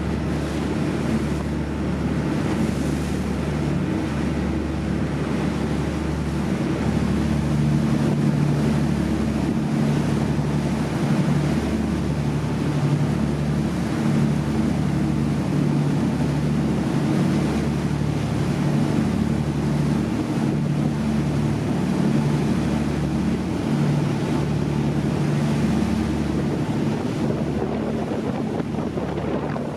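Boat engine running at a steady drone while the boat moves through the water, with a constant rush of water and wind noise on the microphone.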